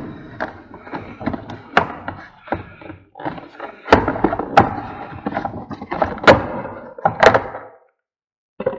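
Irregular knocks, clunks and rattles of hands and a tool working in a car's engine bay, undoing a bolt and pulling out plastic parts, with the sharpest knocks in the middle and late on; it falls quiet near the end.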